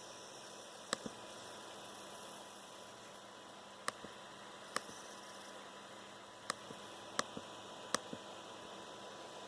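Faint coil whine from a Dell XPS 13 9360 (Core i7, QHD+ screen): a steady, thin electrical whine and static-like hiss from the processor area of the laptop's board, the metallic noise typical of this model under load. Sharp single clicks break in about eight times, several in close pairs.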